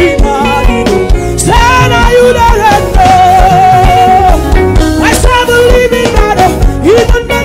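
Live gospel worship music: a band with drums and bass playing under a singer, who holds one long, wavering note in the middle.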